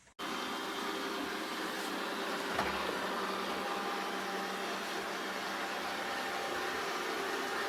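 Steady machine hum, a motor and fan running, cutting in abruptly and holding even, with a brief knock about two and a half seconds in.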